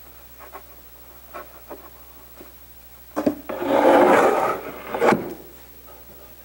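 Plywood bat house tipped down and slid across a wooden workbench: a knock about three seconds in, a scrape of wood on wood lasting about a second, then another knock.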